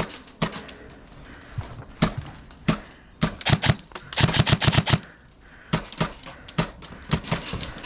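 Airsoft guns firing: single shots and rapid strings of sharp cracks, the densest strings about halfway through.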